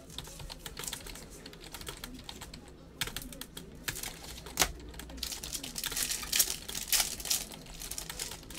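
Crinkling and crackling of foil card-pack wrapping being handled and torn open, a dense run of crackles that grows louder about three seconds in.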